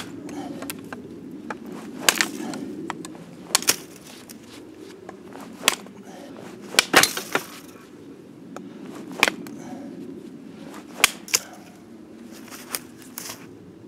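A mini parang chopping through a green sapling stem about 3 cm thick: about ten sharp blade strikes into the wood, irregularly spaced one to two seconds apart, some in quick pairs. It takes many blows, because this short blade does not cut a stem that thick in one stroke.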